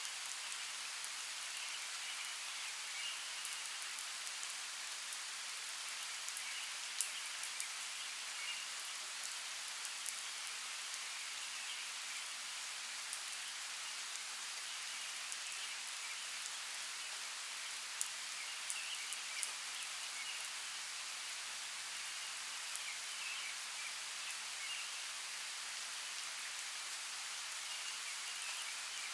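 Steady rain falling on forest foliage, with a few sharper drop hits now and then and faint, patchy chirping behind it.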